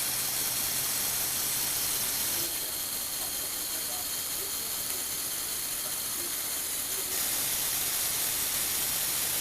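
Small electric motor driving the plastic gears of a motorised Lego Technic model, running with a steady mechanical whir; the sound shifts slightly about two and a half seconds in and again about seven seconds in.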